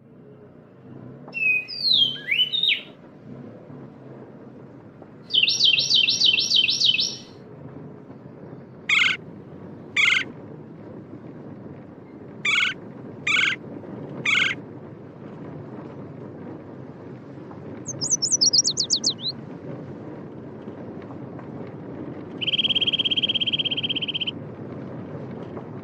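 Several different birds calling and singing in turn: swooping whistled notes, a fast trill, sharp single notes in twos and threes, a falling trill, and a buzzy trill near the end. Underneath runs a steady low rumble.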